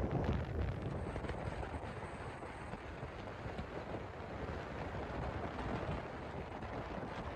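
Jet boat running at speed on the river: a steady rush of engine and water noise.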